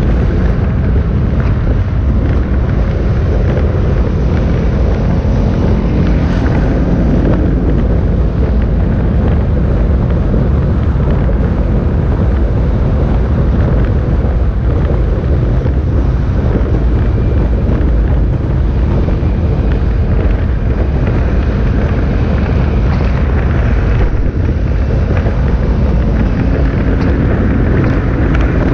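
Motorcycle engines running in a mass parade of motorcyclists, with engine notes rising and falling, under strong wind rumble on the microphone.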